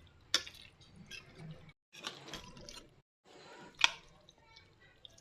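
Wet, sloppy food-preparation sounds with a sharp clink about half a second in and a louder one near four seconds, broken twice by abrupt silences.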